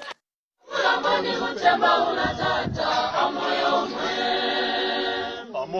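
A group of voices singing together unaccompanied, a choir, starting after a brief silence and running almost to the end.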